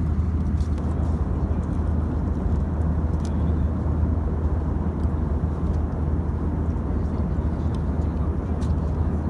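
Steady low rumble of a running vehicle with an even hiss over it, unchanging throughout.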